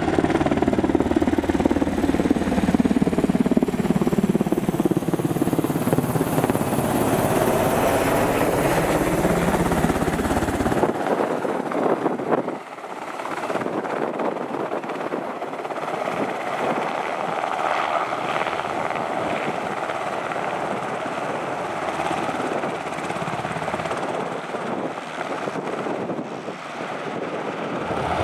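Sikorsky S-70 Black Hawk helicopter's main rotor and twin turboshaft engines. It flies overhead with its pitch gliding as it passes, then, after an abrupt change about eleven seconds in, runs steadily in a low hover near the ground.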